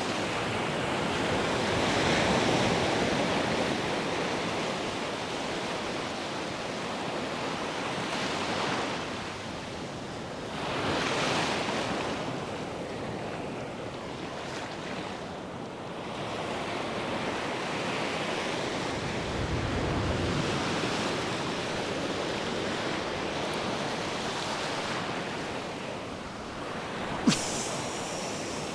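Ocean surf breaking on the beach: waves rush in and wash back, the noise swelling and fading several times. A single sharp click sounds near the end.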